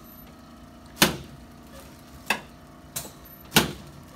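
Chiropractic drop table sections clacking down under adjusting thrusts: four sharp clacks, one about a second in and three quicker ones about two-thirds of a second apart.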